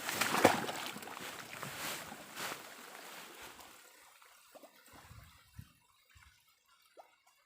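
Shallow stream water splashing and sloshing, loudest in the first second or so, then dying away over a few seconds to faint trickling and a few small knocks.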